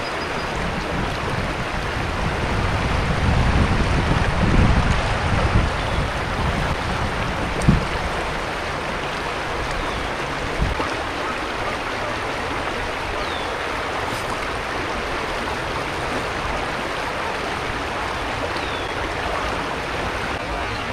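River current rushing steadily over a shallow riffle beside the kayak. Low wind buffeting on the microphone swells a couple of seconds in, and there are two short knocks near the middle.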